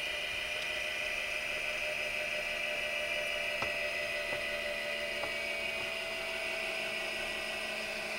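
Steady high-pitched mechanical whine in a light aircraft's cockpit, with a fainter lower hum beneath and a few faint ticks around the middle, just after the electrical power is shut down.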